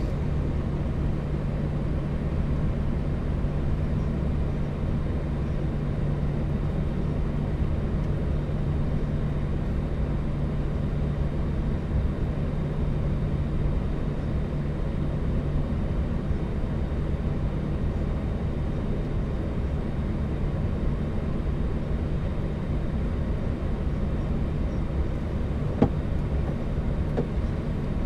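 Steady flight-deck noise of a Boeing 737-800 with both CFM56 engines running at ground idle: an even rumble and hiss with a low hum that fades about halfway through. A single sharp click near the end.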